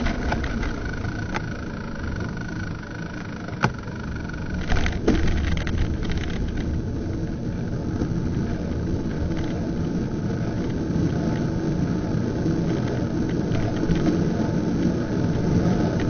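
Steady rumble of road and wind noise from a bicycle-mounted camera riding in traffic, with a car driving just ahead. A few sharp knocks stand out at about four and five seconds in.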